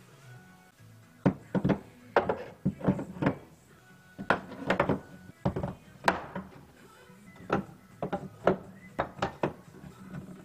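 Wood chisels being set into the slots of a plywood tool rack: a run of sharp wooden knocks and clacks, about a dozen, starting about a second in, over background music.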